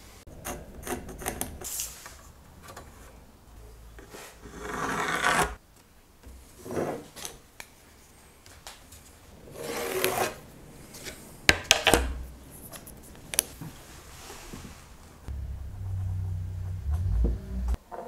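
Hands and a wooden board sliding and rubbing across a wooden slab in separate short strokes, with a few sharp clicks around the middle and a low hum for a couple of seconds near the end.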